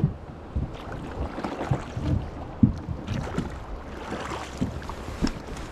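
Water lapping and splashing beside a small boat, with scattered short knocks. A hooked fish thrashes at the surface about four seconds in.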